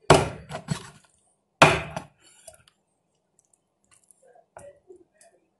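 A big kitchen knife chopping through the bones of a whole raw chicken onto the counter: three heavy chops in the first two seconds, the third the loudest, then a few faint taps as the pieces are handled.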